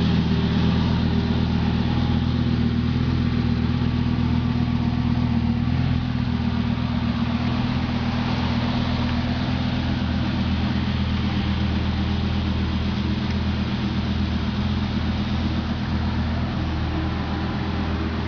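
2004 Lamborghini Gallardo's V10 engine idling steadily.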